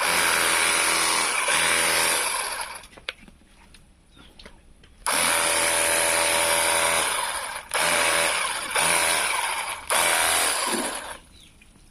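Portable pressure washer running in several bursts as its trigger is squeezed and released: a motor hum under a hiss of spraying water, cutting in and out, with the longest pause about three seconds in.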